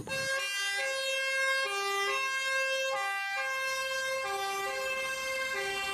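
Two-tone fire-engine siren, switching back and forth between a high and a low note at an even pace.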